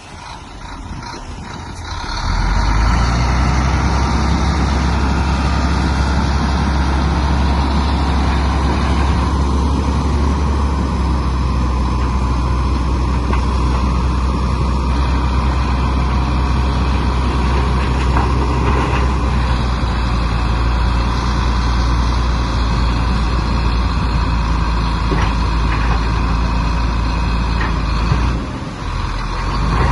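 Komatsu bulldozer's diesel engine working hard, rising to a steady high-revving drone about two seconds in, with a brief dip near the end.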